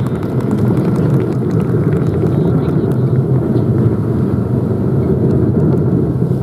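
Wind buffeting the camera microphone: a loud, irregular low rumble that covers most other sound.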